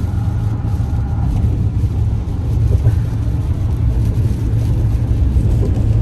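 Steady low road rumble of a moving car, heard inside the cabin.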